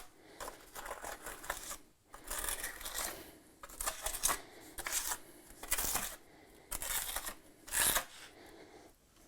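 Mortar being worked with a trowel on a brick corner: a series of short scraping strokes with brief pauses between them.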